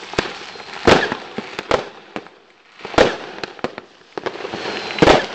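Fireworks going off: four loud bangs at uneven intervals, with smaller cracks and pops between them.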